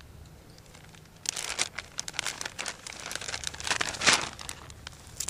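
Clear plastic bag crinkling as it is handled and opened by hand, in a run of irregular crackles that starts about a second in and is loudest just after four seconds.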